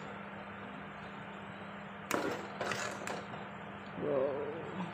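Metal ladle scraping and knocking in an aluminium cooking pot of broth and vegetables, a few short strokes about two and three seconds in, over a steady faint hiss and low hum.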